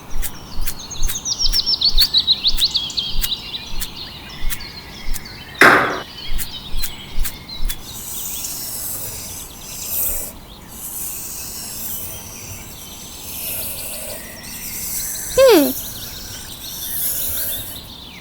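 Birds chirping, with a run of sharp taps over the first seven seconds or so and one loud, short downward-gliding whistle-like call about three seconds before the end.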